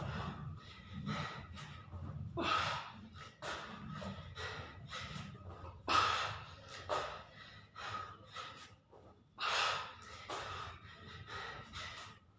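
A man breathing hard from exertion during push-up burpees, quick forceful breaths in and out, with a louder gasping breath every three to four seconds.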